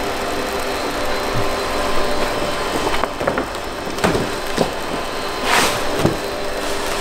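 Large-format roll laminator running with a steady hum, pressing a protective film onto printed vinyl sheets, with crackles and rustles of the plastic film and sheet as they feed through the rollers, most of them about three to six seconds in.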